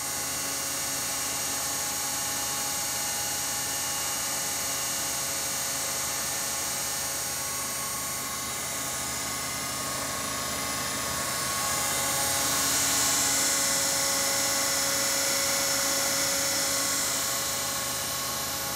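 Internal grinding attachment of a TOS BU28 cylindrical grinder running: its high-speed spindle and drive motor give a steady, high whine with a hum underneath. The whine grows a little louder and hissier about twelve seconds in, then eases back.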